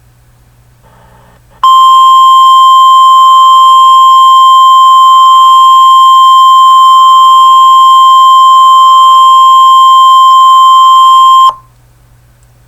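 Emergency alert attention tone: one steady, loud, high-pitched beep at a single pitch, the National Weather Service warning alarm tone. It starts about a second and a half in, holds for about ten seconds and cuts off abruptly. It signals that a weather alert message follows.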